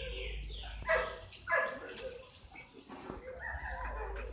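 Domestic chickens calling: short sharp calls about a second in, then a longer drawn-out call like a rooster's crow in the second half, over a steady low rumble.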